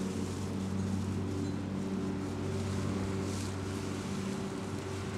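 A motor or engine running steadily, a low even hum that holds one pitch throughout.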